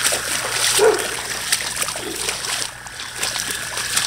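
Splashing of someone wading through shallow floodwater, with a few short whining calls, the loudest about a second in and another around two seconds.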